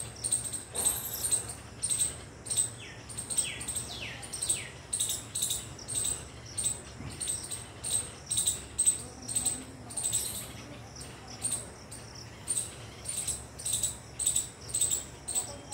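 High-pitched chirping repeating about three times a second, with a few falling whistled notes about three to four seconds in.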